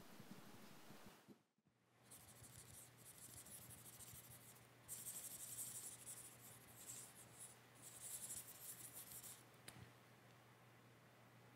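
Faint scratching strokes, like a pen or stylus drawn across a drawing surface, coming in several runs over a low steady hum. A brief dropout to silence comes about a second and a half in.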